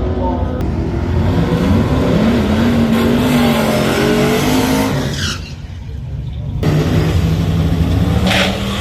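Drag-racing car engines revving and accelerating hard, with a deep rumble and engine notes that climb and fall. About five seconds in the sound drops away briefly, then a steady engine note comes back.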